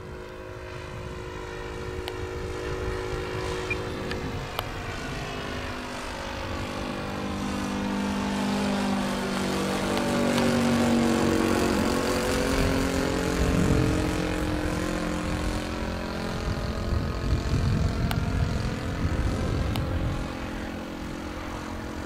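The OS 95 four-stroke glow engine and propeller of a radio-controlled de Havilland DH.60 Gipsy Moth model running steadily in flight. It grows louder as the model passes overhead about halfway through, drops in pitch as it goes by, then fades away.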